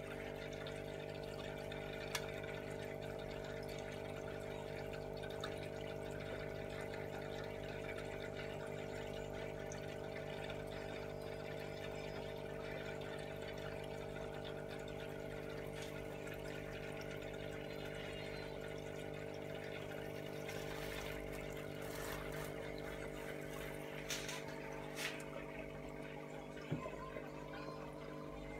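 Aquarium filter pump humming steadily while water trickles and splashes back into the tank, with a few light taps near the end.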